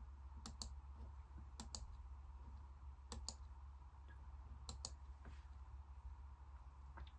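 Faint computer clicks in quick pairs, four times about a second and a half apart, like double-clicks of a mouse, over a low steady hum.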